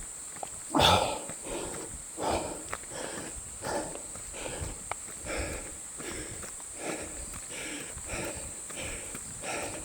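A runner breathing hard and panting in a steady rhythm, a breath about every 0.7 seconds, the loudest just under a second in, with footsteps underneath.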